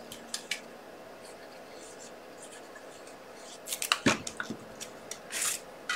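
Quiet room, then from about halfway scattered light clicks and taps and a brief papery swish near the end: small cardstock panels being picked up and handled on a craft desk.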